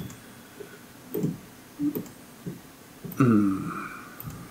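A person's voice: about three seconds in, a drawn-out non-word sound that falls in pitch, after a few short soft sounds.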